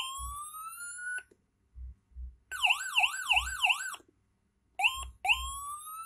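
Electronic siren tones from a Landun-IC siren module played through its speaker, switched by push-buttons. A tone sweeps slowly upward for about a second and cuts off. After a gap comes about a second and a half of fast up-and-down warble. Then short chirps lead into another slow rising sweep near the end.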